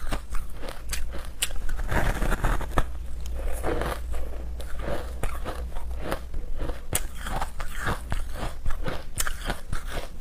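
Teeth biting into and crunching a chunk of frozen shaved ice, then chewing it: a dense run of sharp cracks and crackles as the ice breaks up in the mouth.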